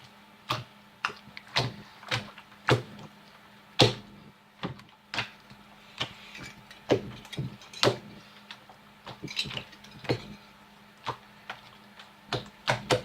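Hands kneading and pressing a sticky slime on a tabletop: irregular sharp clicks and wet slaps, with a faint steady hum underneath.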